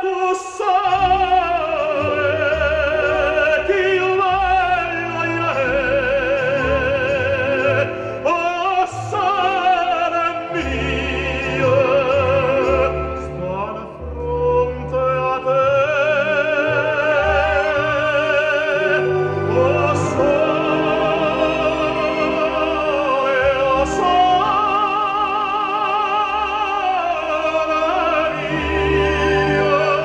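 Operatic singing with a wide vibrato over orchestral accompaniment, played back through loudspeakers driven by the Fluxion F-2300A 300B tube amplifier. The music dips briefly about halfway through.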